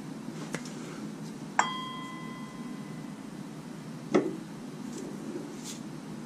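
A single sharp metallic clink that rings on briefly with a clear bell-like tone, then a duller knock a couple of seconds later: metal parts and tools touching as a harmonic balancer is fitted onto the crankshaft nose. A low steady hum sits beneath.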